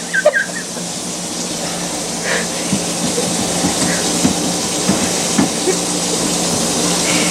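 Water running steadily with a low hum, growing slowly louder, with a few faint knocks.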